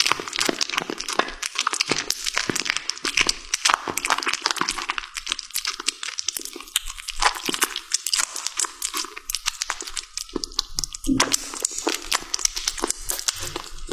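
A kitten chewing and tearing at a raw salmon fillet, close up: a dense run of quick, crackling bite and chew clicks.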